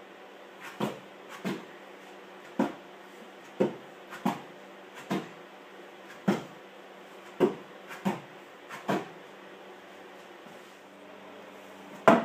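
Hands slapping onto the wooden rungs of a campus board as a climber jumps both hands up together: a run of about ten sharp wooden knocks roughly a second apart, often with a faint tap just before each. Then a pause and one louder knock near the end, with a steady low hum underneath throughout.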